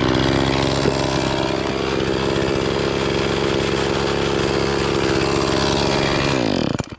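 Chainsaw running at a steady speed, then shut off near the end, its engine winding down to a stop.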